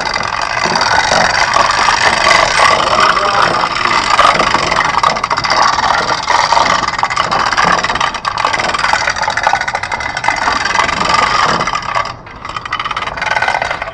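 A garage door opener's motor running, with the door rattling as it travels. It stops about twelve seconds in, then runs again briefly.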